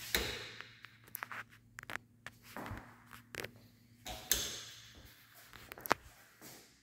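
Irregular footsteps and light knocks on a hard laminate plank floor in an empty room, over a faint steady hum. The sharpest knocks fall about four seconds in and near the end.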